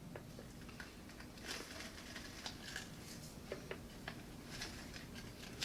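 Spoon stirring drink powder inside a plastic water bottle: faint, scattered light clicks and short scrapes.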